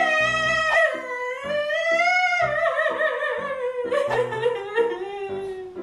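A woman's long, high wailing fake cry that wavers and then slowly falls in pitch, over background music with a steady beat.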